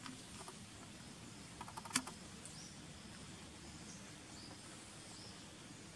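Faint forest ambience: a steady background hiss with a few short, high chirps. A brief cluster of sharp clicks comes about two seconds in, the last one the loudest.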